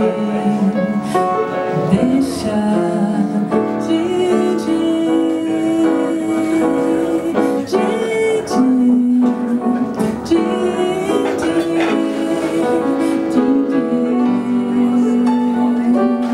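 A woman singing a slow bossa nova ballad into a microphone, holding long notes, accompanied by a grand piano.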